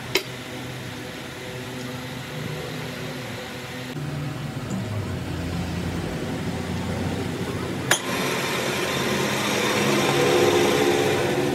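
Metal lathe running with a steady motor hum, with a sharp click just after the start and another about eight seconds in. After the second click the running grows louder and hissier.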